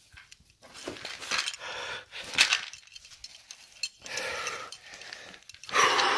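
Scrambling over cave rock: irregular scraping, rustling and sharp clicks and knocks of hands, clothing and the handheld camera against the stone, with hard breathing. The loudest knock comes about two and a half seconds in.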